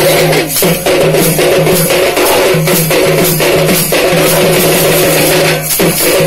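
Loud, distorted drumming at a fast, steady beat of about three strokes a second, over a sustained droning pitched tone that breaks off briefly every second or two: the music accompanying a lathi khela stick-fighting display.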